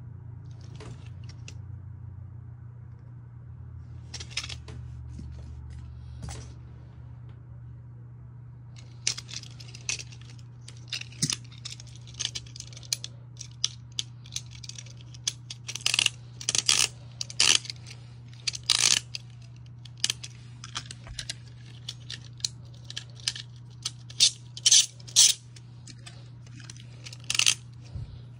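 Small plastic and metal Beyblade parts clicking and clinking as tops and launchers are handled, the clicks sparse at first, then many in quick, irregular succession from about a third of the way in. A steady low hum runs underneath.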